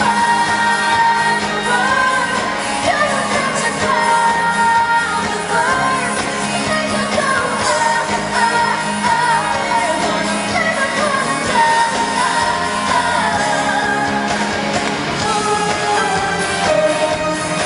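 Live pop performance: a female singer with a full band backing, sung melody over a steady beat, with the echo of a large hall.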